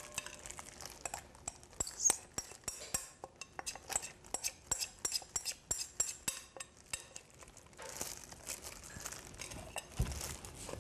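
A spoon scraping and tapping against glass bowls as thick chili sauce is scraped out onto noodles: many light, irregular clinks. A softer rustling takes over near the end.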